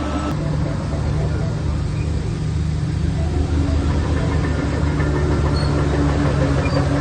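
Heavy diesel engine of earthmoving machinery running steadily under load, with a deep, continuous drone.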